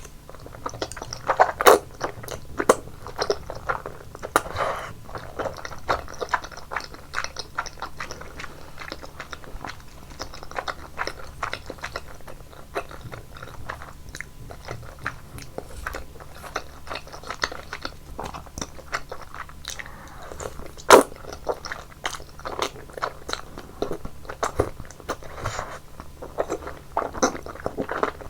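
Close-miked chewing of thick udon noodles in a creamy sauce, with many short wet mouth clicks and one sharper click about three quarters of the way through.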